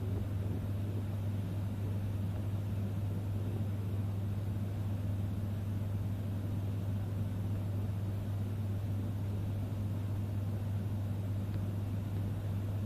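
Steady low machine hum that does not change.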